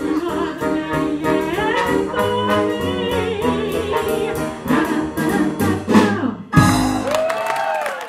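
Small jazz combo of trombone, piano, upright bass and drums playing the close of a swing tune, with regular drum strokes. About six and a half seconds in the band breaks off briefly, then strikes a loud final chord and holds it.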